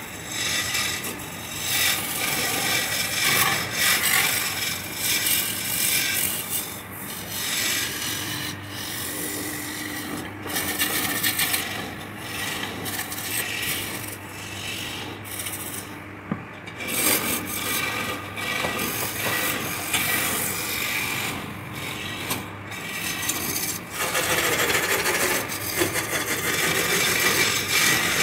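A hand-held turning chisel is cutting a spinning wooden blank on a wood lathe, making a continuous scraping shave of wood that swells and eases as the tool is worked. A low steady hum runs beneath. The cutting eases briefly about halfway through and grows louder near the end.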